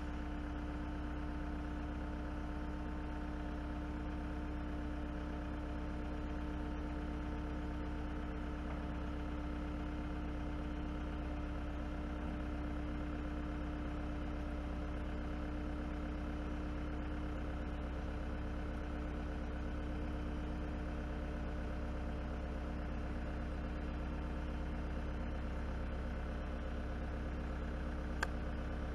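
An engine idling steadily, an unchanging drone of even tones. One sharp click sounds near the end.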